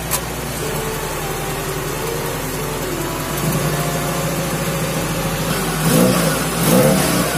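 Freshly rebuilt Toyota Corolla 16-valve four-cylinder engine running steadily. It picks up slightly about three and a half seconds in, then is revved twice in quick blips near the end.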